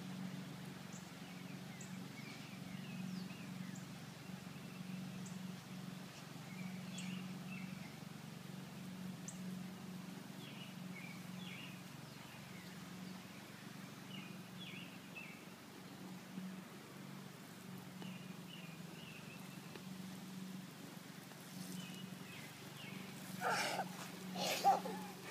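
Faint scattered bird chirps over a steady low hum, with a few short louder sounds near the end.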